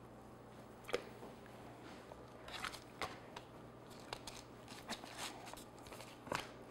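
Bench scraper chopping cold dough on a plastic cutting board: a scattering of soft taps and clicks as the blade meets the board, the largest about a second in and near the end.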